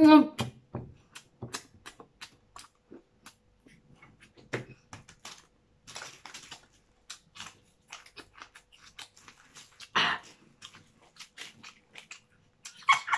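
Close-up eating sounds of spicy crab: chewing, mouth smacks and small cracks and clicks of shell, scattered irregularly. It opens on the tail of a wavering hum, and a louder breathy sound comes about ten seconds in.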